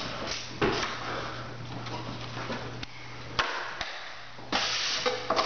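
Irregular scrapes and light clicks of a steel drywall trowel working joint compound on a hawk, over a steady low hum.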